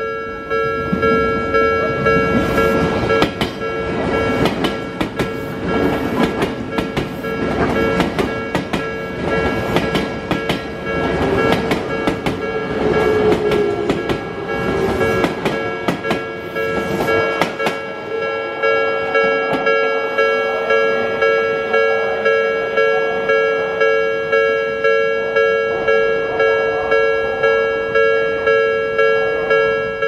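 Japanese railway level-crossing warning bell ringing steadily, with an Odakyu commuter train's wheels clattering over the rail joints as it passes through for roughly the first eighteen seconds. After the train has gone the bell keeps striking on its own, about one and a half times a second.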